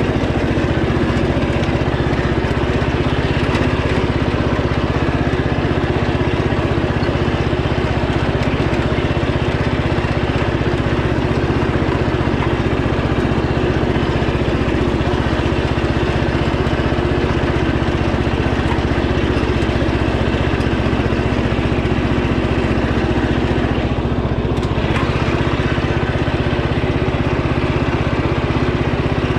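A 13-horsepower riding lawn tractor engine running steadily while the tractor is driven along.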